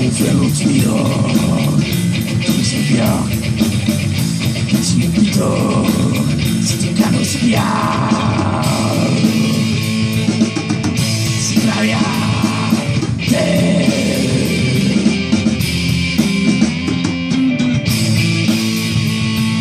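Live rock band playing amplified: electric guitar, bass guitar and drum kit, with a woman singing over them.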